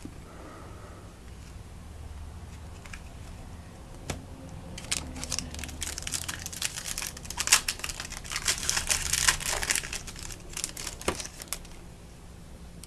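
A trading-card pack wrapper crinkling and tearing as it is opened, with a single click before it and the crinkling running for about six seconds from about five seconds in.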